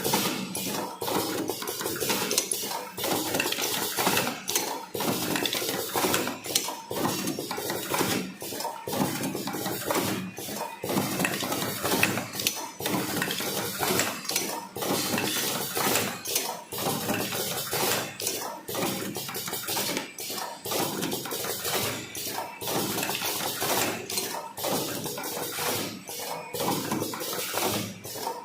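Automatic cartoning machine running, a continuous metallic clatter with sharper knocks about twice a second as its mechanism cycles.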